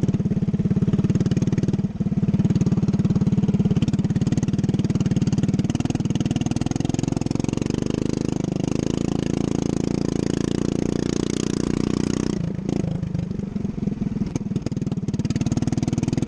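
Racing lawn mower engine running hard and steadily, easing off briefly about twelve seconds in and then picking up again.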